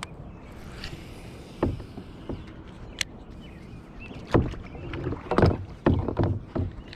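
Knocks and thuds on a kayak's hull with water sounds as the kayak is handled, irregular at first, with a sharp click about three seconds in and a busy run of knocks near the end.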